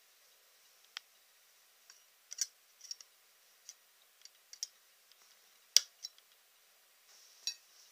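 Light, irregular metallic clicks and ticks of a butter knife's tip pressing and scraping on an iPhone 4's dock connector pins, about a dozen in all, the loudest about six seconds in. The pins are being pushed to cure the phone's missing volume bar.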